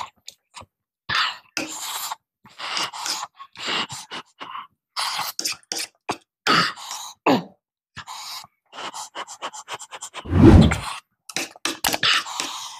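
Close-miked eating sounds: a man chewing and slurping spoonfuls of soft khichdi, with spoon scrapes on the plate, in short irregular bursts. About ten seconds in there is one louder, deeper burst.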